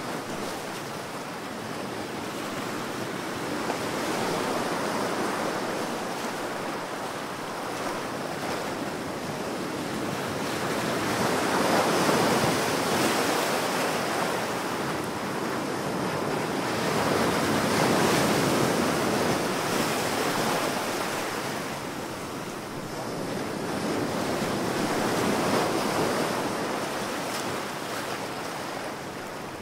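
Ocean surf: waves breaking and washing in as a continuous hiss that rises and falls in slow surges about every six or seven seconds.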